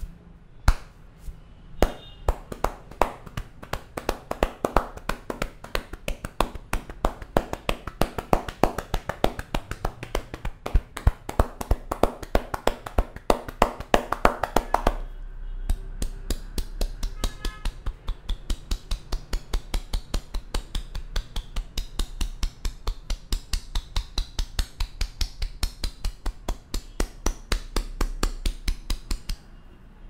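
Rapid rhythmic percussive strikes of a barber's hands on a man's head during a traditional Indian head massage, with palms joined, about four or five sharp claps a second. About halfway through, the strikes change to a lighter, brighter tone, and they stop shortly before the end.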